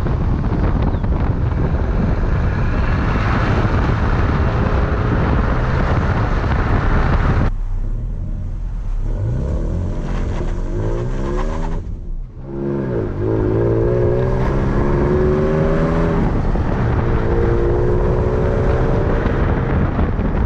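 2018 Toyota Tacoma exhaust fitted with a DC Sports stainless steel muffler tip: the engine runs under a noisy, wind-like haze for about seven seconds. Then it is revved up and down several times, its pitch rising and falling, and settles near the end.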